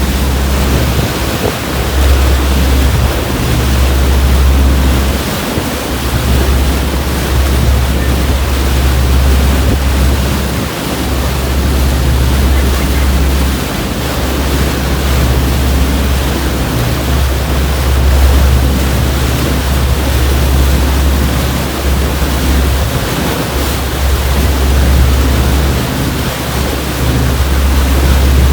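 Wind buffeting the microphone over the rush of sea water on a moving boat: a loud, steady rushing noise with a heavy low rumble that drops out briefly a few times.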